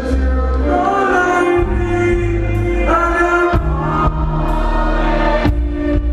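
Reggae band music with singing: held vocal lines over a deep, steady bass, and a few sharp drum hits.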